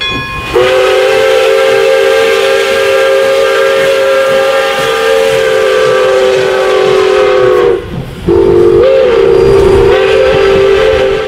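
Pere Marquette 1225 steam locomotive's whistle blowing, several tones sounding together: one long blast of about seven seconds, a short break, then a second blast whose pitch swells briefly near its start. Steam hisses under it.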